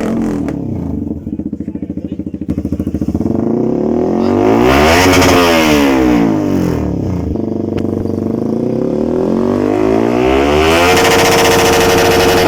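Yamaha R15 V3's 155 cc single-cylinder engine running through a freshly fitted aftermarket M4 exhaust: it idles unevenly for a few seconds after start-up, is revved up and let fall back, then revved again and held high near the end.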